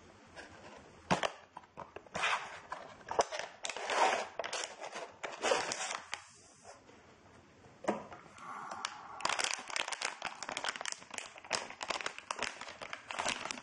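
A cardboard box being opened and a plastic antistatic bag crinkling in the hands: irregular rustles and crackles that become dense and continuous about nine seconds in.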